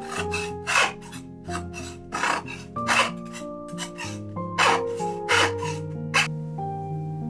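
Repeated rasping strokes, roughly one every two-thirds of a second, stopping a little after six seconds in, over soft piano music.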